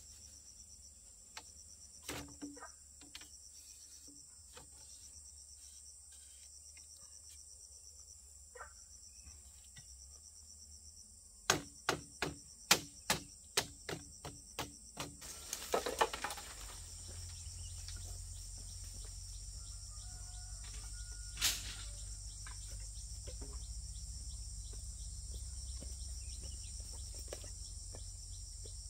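Insects droning steadily at a high pitch. About halfway through comes a run of roughly a dozen sharp knocks, about three a second and fading, from bamboo being worked at the fence. A single sharp knock follows a few seconds later over a low rumble.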